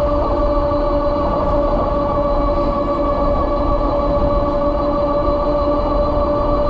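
Kepler e-bike's electric motor whining steadily at a constant cruising speed of about 33 mph, over a heavy low rush of wind and road noise.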